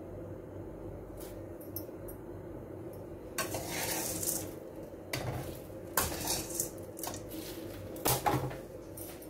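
Metal spatula scraping and knocking against an aluminium kadai as dry-roasting chana dal is stirred, the dry lentils rattling in the pan. It comes in several bursts, starting about a third of the way in.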